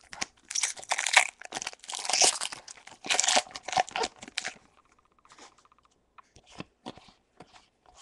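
A foil booster-pack wrapper being torn open and crinkled, a loud, dense crackling rustle lasting about four seconds. After that come quieter handling noises and a few scattered clicks as the cards are drawn out.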